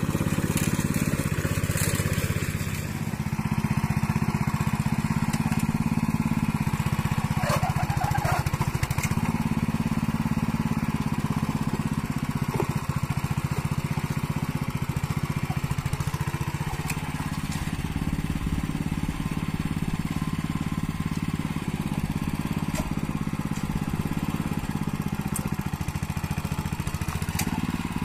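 The small engine of a two-wheel hand tractor (traktor capung) running steadily under load, driving its cage wheels and puddling roller through wet mud and straw in a flooded rice paddy. The engine note dips briefly about three seconds in.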